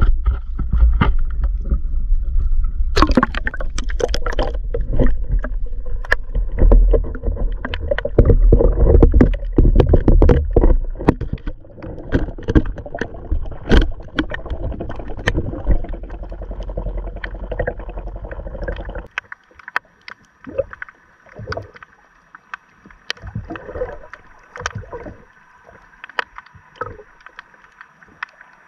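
Action camera in its housing going into the sea on a fishing line: a burst of splashing about three seconds in, then muffled underwater rushing and knocking of water against the housing. About two-thirds of the way through the rushing cuts off abruptly, leaving faint clicks and a steady faint whine.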